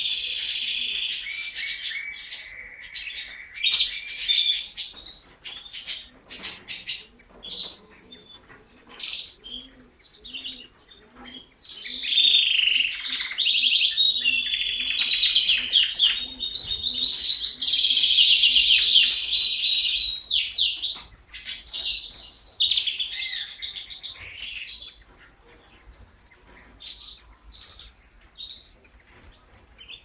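Canary singing a long, continuous song of fast trills and rolls with chirped notes between phrases, loudest in rolling passages near the middle.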